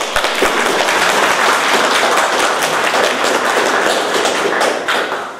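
Applause from a roomful of people, many hands clapping at once. It starts all at once and tails off after about five seconds.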